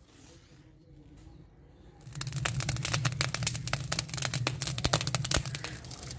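Dry grass and sticks crackling as they burn in the mouth of a clay tandoor: a dense run of sharp crackles that starts suddenly about two seconds in, after a quiet start.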